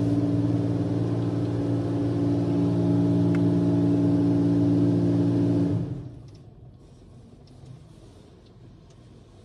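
Automatic car wash rinse equipment running with a steady, multi-toned mechanical drone, heard from inside the car; it stops abruptly about six seconds in.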